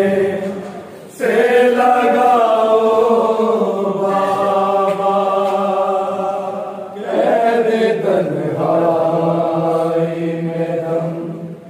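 A solo voice chanting a devotional melody in long, held, slowly wavering notes. One phrase starts about a second in and a second about seven seconds in, with a short breath between.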